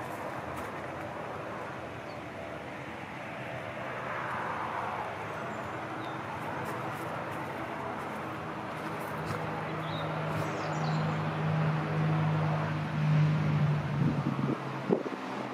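Twin-engine propeller aircraft on approach to land, its engines throttled back: at first mostly wind on the microphone. About halfway through, a steady low engine and propeller drone grows louder as the plane comes close, with a few sharp spikes near the end as it nears touchdown.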